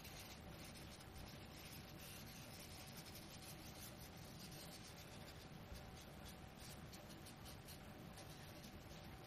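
Cotton pad rubbing pastel powder into drawing paper, a faint soft swishing of quick, repeated blending strokes.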